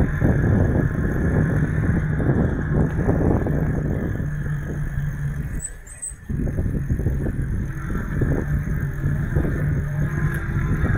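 Bicycle on the move: wind and riding noise rumbling on the microphone under a steady low hum, which drops away briefly about six seconds in.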